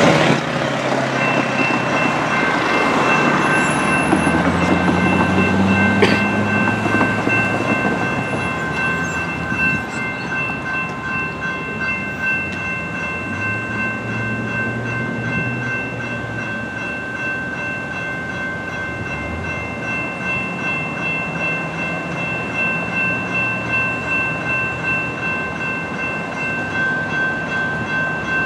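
A General Signals Type 2 electronic crossing bell rings steadily as a CAF light rail train passes, its wheel and rail noise heaviest over the first eight seconds or so, with a single sharp knock about six seconds in. After that the train noise dies away and the bell keeps ringing.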